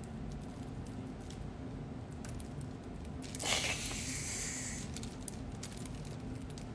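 Quiet room tone with a steady low hum and a few faint clicks, and a soft hiss lasting about a second and a half, starting about three and a half seconds in.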